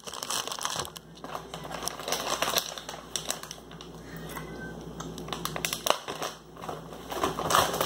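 Snack wrappers and packaging rustling and crinkling as a hand sorts through them, with many small sharp crackles and taps.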